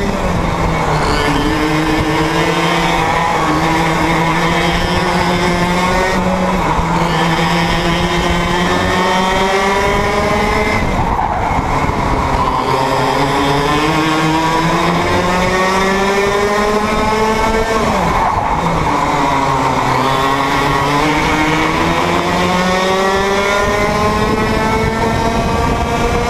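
Onboard sound of a KA3 Junior racing kart's two-stroke engine at racing speed. Its pitch climbs steadily through each straight and drops sharply as the driver brakes for a corner, several times over.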